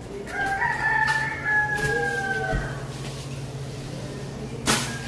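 A rooster crowing: one long crow of about two seconds, its pitch sliding slowly down, over a steady low hum. A single sharp click comes near the end.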